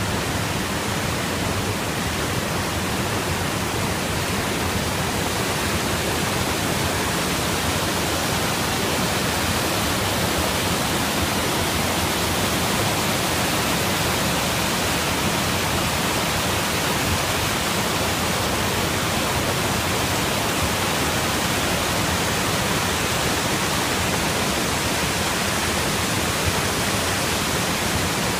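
Water pouring over a weir and churning through the rocks below it, a steady, even rush of whitewater.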